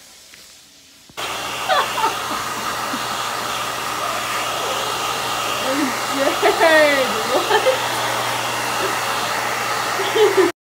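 Handheld hair dryer blowing, a loud steady rush of air with a low hum, switching in about a second in and stopping abruptly near the end.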